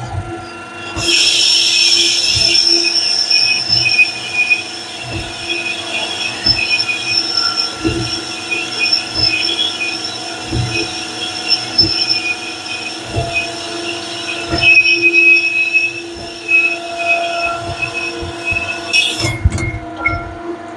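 Cylinder hone running inside an S44 engine's cylinder liner, the abrasive stones grinding the bore to size with a steady high-pitched squeal over a motor hum, and a low thump every second or so. The squeal starts about a second in and stops shortly before the end.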